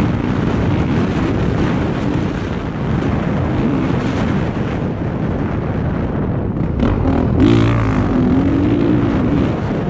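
Honda CRF450R's single-cylinder four-stroke engine under load on a motocross track, its pitch rising and falling as the throttle is worked. About six seconds in it eases off briefly, then revs hard again.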